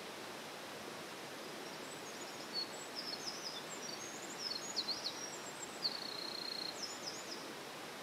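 Eurasian wren singing a quick, high-pitched burst of song, with sliding notes and a short even trill, starting about two seconds in. Behind it is the steady rushing hiss of a mountain stream.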